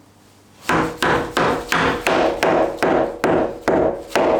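A steady run of about ten hammer blows on timber, two to three a second, starting just under a second in, each blow ringing briefly through the board: a ceiling panel being knocked into place.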